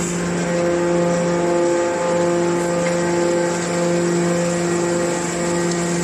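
Hydraulic metal baler running with a steady pitched hum from its pump and motor as it compacts a hopper load of metal turnings.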